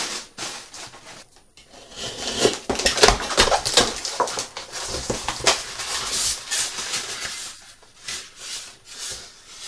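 A box and its packaging being opened and handled: irregular rustling and scraping with light knocks.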